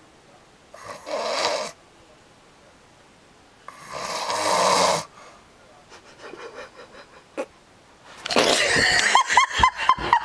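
A man snoring: two long, rasping snores, about a second in and about four seconds in, the second louder and longer. Near the end a louder, busier stretch of sound starts, with short, quick, arching calls.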